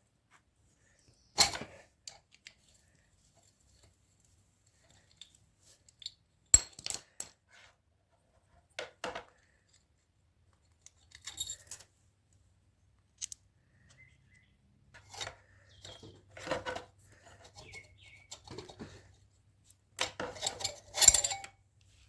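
Metal tools and small metal parts clinking and clattering in scattered short bursts, with the sharpest knocks about a second and a half in and again about six and a half seconds in, and a denser cluster near the end.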